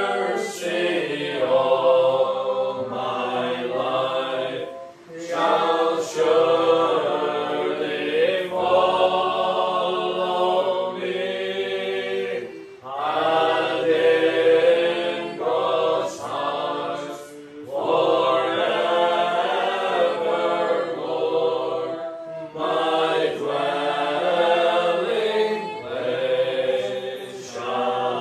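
Small mixed choir of men and women singing a gospel hymn together, phrase by phrase with brief dips for breath between lines.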